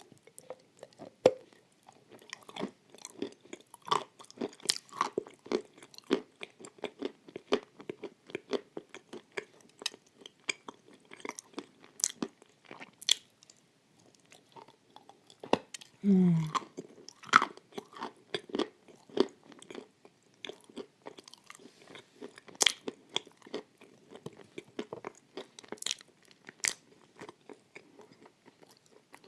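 Close-miked chewing and crunching of edible clay with white chalk paste: dense, irregular crackles and crunches in the mouth. A brief voiced hum with a falling pitch comes about halfway through.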